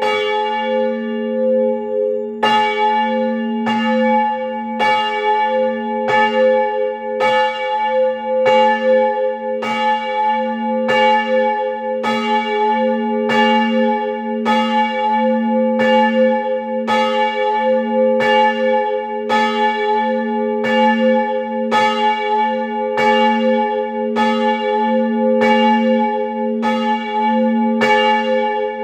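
The parish church's small bell, swung and rung on its own and heard close up inside the belfry. Its clapper strikes steadily, roughly once a second, and each stroke rings on into the next.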